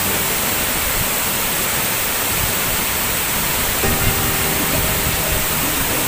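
Steady rushing noise of a tall waterfall falling into a rock pool, with soft background music underneath.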